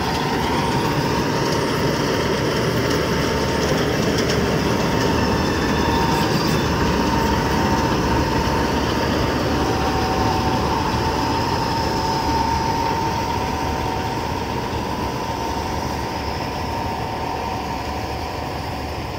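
Combine harvester running: steady engine and machinery noise with a high, steady whine, fading over the last few seconds.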